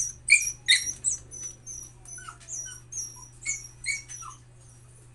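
Hungry puppy whining and squealing in a quick run of short, very high-pitched cries, about two or three a second, that die away near the end. The dog is begging for its food.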